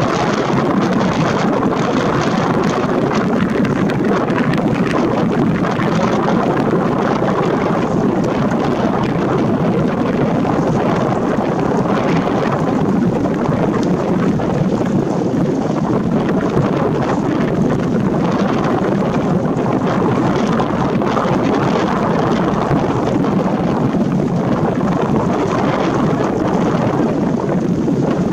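Loud, steady wind noise on a camera's built-in microphone with no foam windscreen, masking the other sounds.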